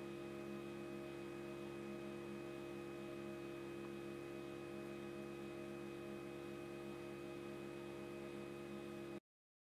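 A steady, low, pitched hum that holds one unchanging tone and cuts off suddenly near the end.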